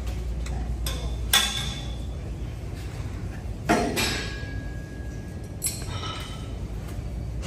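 Gym weights clinking: a handful of sharp metal clinks, the loudest about a second and a half in and near the middle, some ringing briefly, over a steady low hum.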